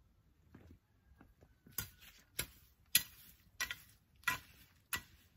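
A garden hoe chopping into grass and weeds, about six sharp strokes roughly one every 0.6 seconds, beginning about two seconds in.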